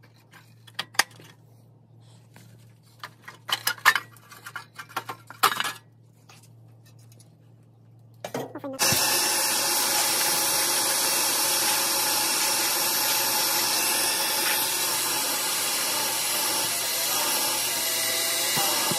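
Scattered clinks and knocks of tools being handled, then about nine seconds in a power tool starts suddenly and runs loud and steady.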